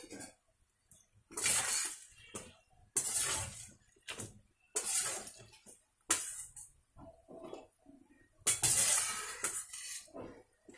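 A wire-mesh skimmer stirring and turning madata kaja pastries as they deep-fry in hot oil in a steel kadai. It comes as a string of short bursts of scraping and sizzling, one every second or so.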